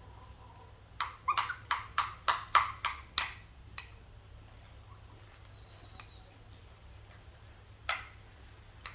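A quick run of about eight sharp knocks or clacks over a couple of seconds, then a few single knocks spaced out after it.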